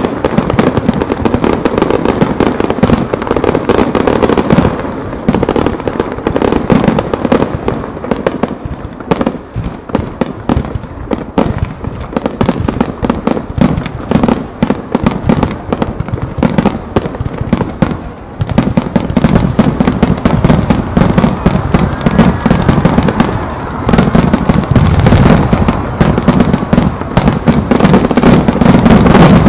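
Fireworks display: a dense, continuous barrage of shell bursts and crackling, with heavier low booms in the last third.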